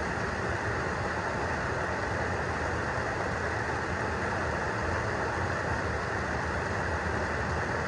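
Steady rushing of river water pouring over a low rock weir and churning around a wader-clad person standing in the current.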